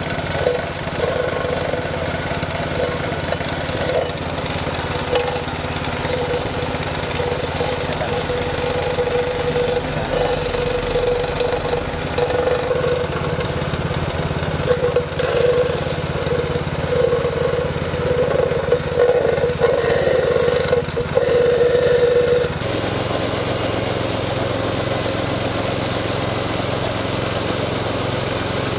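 Small engine running a coconut grater machine: a steady engine drone with a wavering mid-pitched whine that swells and fades. About three-quarters of the way through the sound changes abruptly to a steadier, even engine drone.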